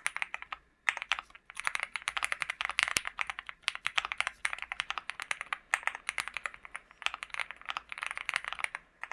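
Fast, continuous typing on a LEOBOG Hi75 mechanical keyboard with Gateron G Pro 3.0 Yellow linear switches: a dense stream of key clacks, with a short pause a little under a second in.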